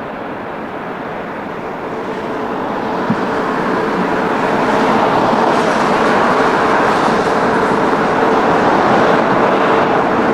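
Jet airliner engines running loud and steady, building in level over the first five seconds and then holding, with a steady hum under the noise.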